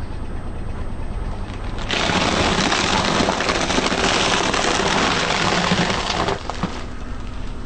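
A car tyre rolling over plastic-wrapped packs of round crunchy snack cakes, crushing them with a dense crackling crunch that starts about two seconds in and stops about six seconds in, over a low engine hum.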